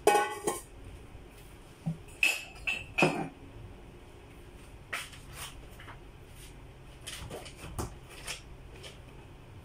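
Metal pot and kitchenware clattering: several loud, ringing metal clanks in the first three seconds, then scattered softer knocks and clinks.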